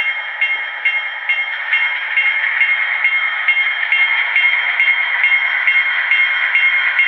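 Model MP15 diesel locomotive's onboard sound decoder playing diesel engine sound through a small, tinny speaker, with a regular beat about two and a half times a second.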